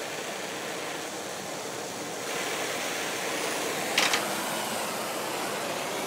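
Handheld gas torch burning with a steady hissing rush as its flame heats a steel knife blade for heat treating. A brief sharp click about four seconds in.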